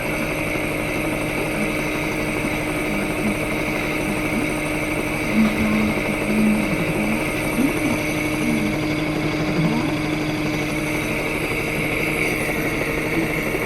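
Steady machine hum with a constant high whine, typical of a high-frequency chest wall oscillation vest's air-pulse generator running.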